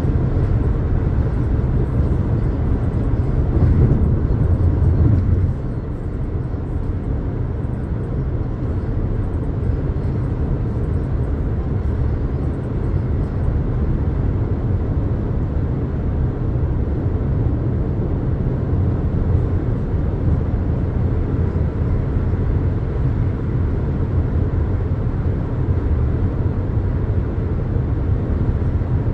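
A 2022 Jeep Compass Latitude under way, with a steady low rumble of engine and road noise. It swells briefly about four to five seconds in, then drops suddenly and stays even.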